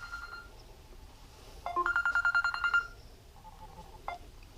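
Phone ringtone: an electronic tone trilling rapidly for about a second, with a shorter steady beep fading at the start. It is an incoming call, taken for telemarketers.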